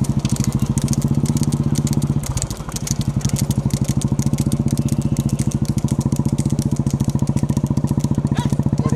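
Motorcycle engine running steadily close by, a fast even pulse that eases off briefly about two seconds in, with a rapid clatter of clicks over it.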